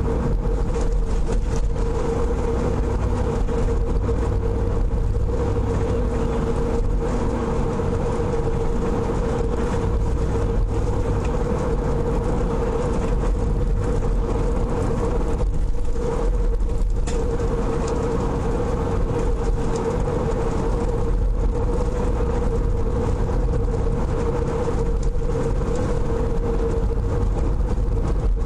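Steady road and engine noise heard from inside a moving car, with a constant low hum.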